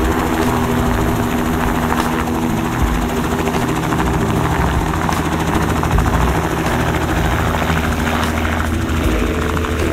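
Electrically driven Robinson R44 helicopter hovering low and moving off, its rotors running with steady, unbroken blade noise and a steady hum beneath.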